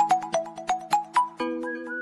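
Background music: quick struck notes, about four a second, over held chords, giving way about one and a half seconds in to a sustained chord with a smooth gliding melody on top.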